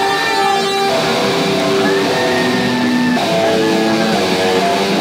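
Electric guitar played through an amplifier, a lead line of long held notes that step from one pitch to the next.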